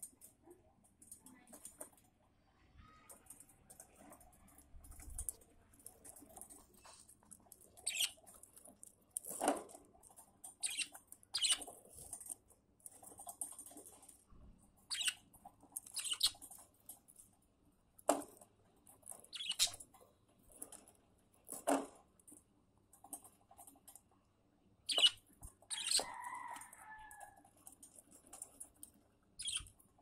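Budgerigars chirping faintly in short high bursts, with scattered sharp clicks and taps. A brief wavering call comes near the end.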